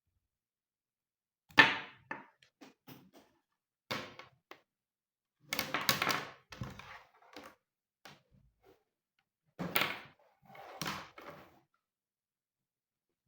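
Handling noises: a series of irregular knocks and thunks with short rustles, the loudest about a second and a half in, as things are picked up and set down on a surface.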